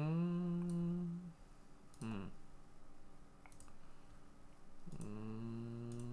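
A man humming to himself in low, wordless tones: one note rising and then held for about a second, a short falling "hm" about two seconds in, and another note held steady for about two seconds near the end. Sparse faint computer mouse clicks in between.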